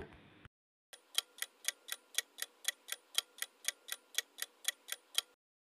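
Quiz countdown-timer ticking sound effect: even clock-like ticks, about four a second, starting about a second in and stopping suddenly near the end.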